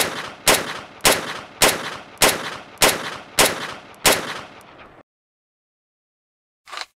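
Desert Eagle pistol firing eight shots in steady succession, a little over half a second apart, each followed by a short fading echo. After a silence, a brief mechanical sound near the end as the reload begins.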